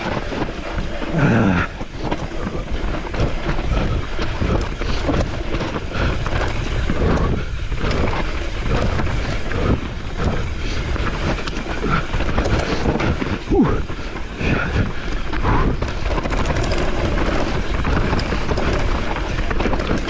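Mountain bike ridden down a rough trail: wind buffeting the camera microphone over the rumble of tyres on dirt and stones, with a constant clatter of chain and frame rattling over bumps.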